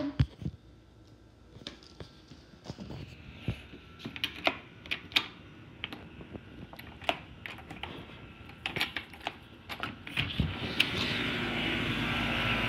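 Irregular clicks and knocks of a phone camera being handled while its holder walks and goes out through a door. About ten seconds in, a louder steady outdoor hum comes up.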